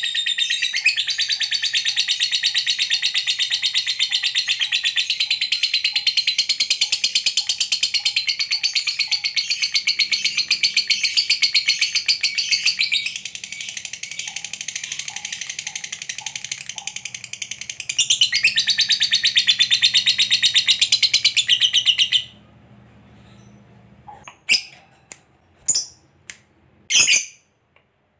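Lovebird giving a long ngekek: a continuous, very rapid, high-pitched chattering trill that runs for about twenty seconds, dipping in loudness for a few seconds midway. It then stops abruptly and is followed by a few short, separate chirps near the end.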